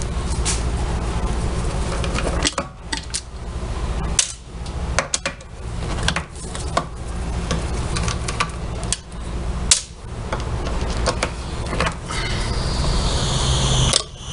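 Irregular metallic knocks and clinks of washing-machine transmission parts being handled and worked with tools, over a steady low hum. Near the end a high wavering whine begins.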